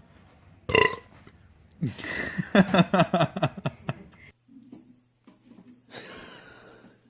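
A baby's long, rasping bodily noise lasting about two seconds: a fast train of pulses falling slightly in pitch. A short sharp sound comes just before it, and a low steady hum follows.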